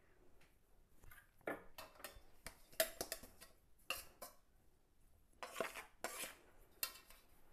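Steel kitchenware clanking as a metal flour sieve and steel bowls are knocked and set down: about six separate clinks and clanks, a few ringing briefly.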